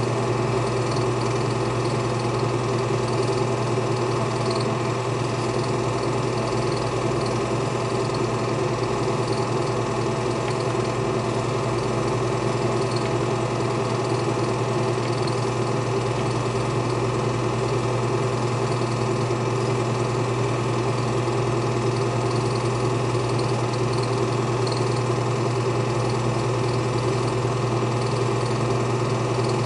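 Film projector running steadily: an even motor hum with a strong low mains-type drone and the whirr of the mechanism, unchanging throughout.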